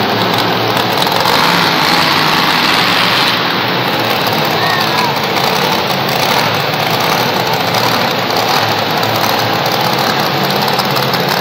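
Monster truck's supercharged V8 engine running loud and steady as the truck drives across the arena floor.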